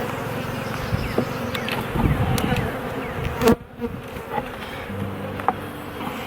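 Honeybees buzzing steadily in an opened hive during a frame-by-frame inspection, with a few light clicks and one sharp knock about halfway through.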